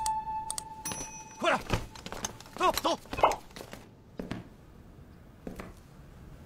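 A held flute note from the background score ends about a second and a half in. It is followed by a few short sounds that slide up and down in pitch, and later by two faint knocks.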